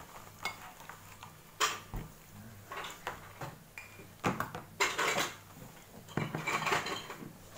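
A metal table knife clinking and scraping against the inside of a glass honey jar as honey is scooped out: a series of separate clinks and short scrapes, loudest about halfway through, with a longer scrape near the end.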